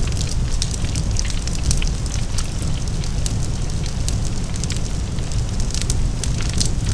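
Large fire burning: a deep, steady rumble with many sharp, irregular crackles and pops of burning wood.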